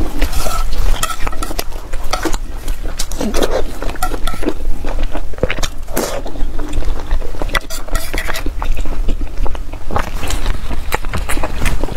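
Eating sounds picked up close by a clip-on microphone: chewing on braised pork, with chopsticks clicking and scraping against the pot of sauce. There are many short sharp clicks throughout.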